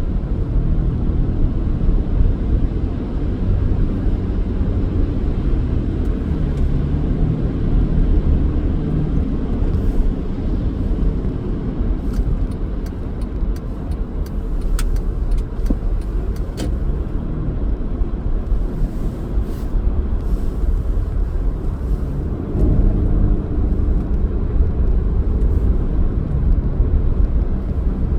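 A car driving on snow-cleared city streets: steady low engine and road rumble, with a few light clicks about halfway through.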